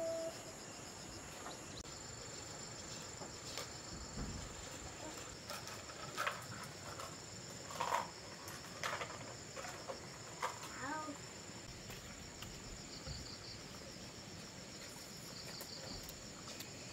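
Insects chirring steadily at a high pitch with a fast pulsing texture. A few soft knocks and a brief faint call come through around the middle.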